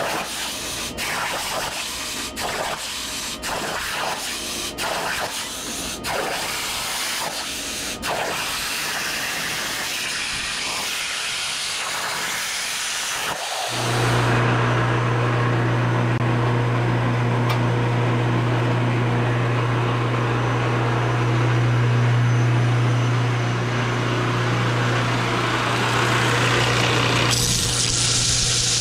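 Hypertherm Powermax plasma cutter hissing as a CNC table cuts stainless sheet, played at four times speed, with sharp clicks about twice a second. About 14 seconds in it gives way to the steady, loud hum of a belt sander's motor. Near the end a cut stainless tag is pressed to the belt, adding a brighter grinding hiss as the cut edges are cleaned up.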